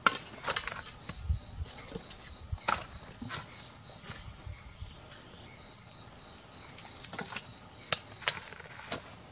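Insects chirring in a steady high drone, with a few sharp knocks of a machete and a wooden stick against stone, the loudest near the end.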